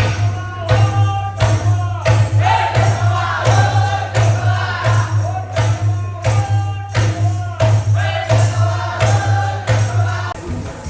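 Tharu folk dance music: singing over a steady, evenly spaced percussion beat, with a constant low hum underneath.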